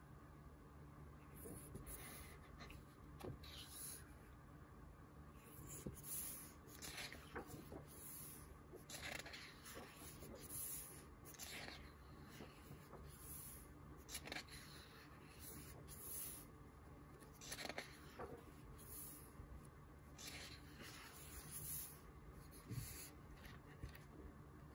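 Faint paper rustles and swishes from the thick, glossy pages of an oversized hardcover comic book being turned by hand, one every second or two.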